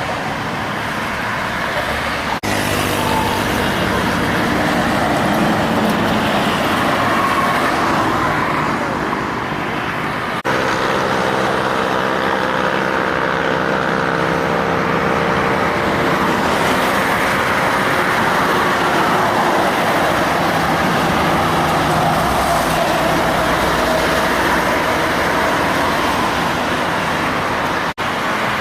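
Heavy diesel trucks passing on a highway, their engines running with a steady drone over road and traffic noise. The sound changes abruptly about two seconds in, about ten seconds in and near the end, as separate passes are cut together.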